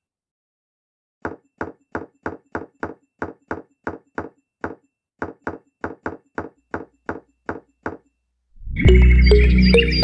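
A quick run of about two dozen light hammer taps on wood, about three to four a second, stopping just before loud music comes in near the end.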